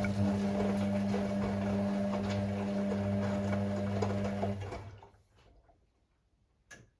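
Hoover Six Sportswear AI130 washing machine tumbling its drum in the wash: the motor hums steadily, then winds down about four and a half seconds in and the drum pauses, with a short click near the end.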